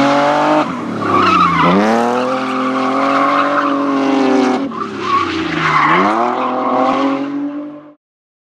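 BMW E30 rally car engine at high revs, with tyres squealing as the car slides through a bend. Twice the revs fall sharply and then climb again. The sound cuts off abruptly near the end.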